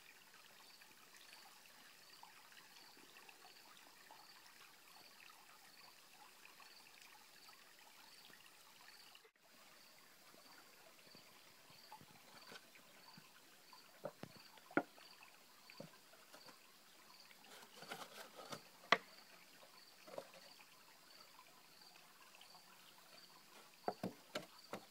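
Faint trickle of a small mountain stream, with a faint high-pitched chirp repeating evenly throughout. A few soft clicks and knocks come in the second half, the sharpest about 19 seconds in.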